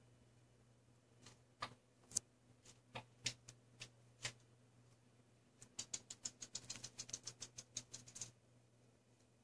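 Faint scattered clicks, then a rapid run of small ticks lasting about two and a half seconds, over a low steady hum.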